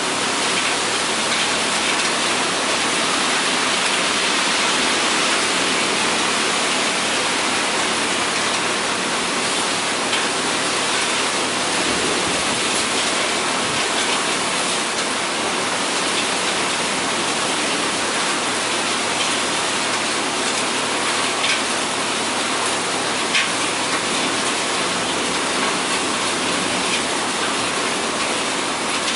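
Heavy rain falling steadily on a lawn and mulch bed, an even hiss, with a couple of sharper drop taps about two-thirds of the way in.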